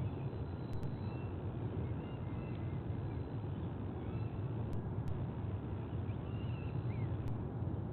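Steady low outdoor rumble with faint, short bird chirps and down-gliding calls scattered through it.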